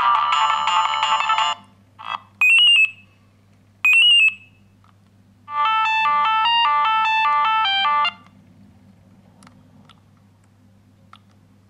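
Siemens C60 mobile phone playing its ringtones. One electronic melody stops about a second and a half in, two short rising chirps follow, and then another ringtone melody plays for about two and a half seconds. A few faint clicks come after it.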